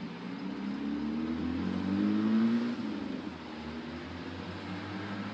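A car's engine accelerating along the street, its pitch rising steadily, loudest a little over two seconds in and then falling away.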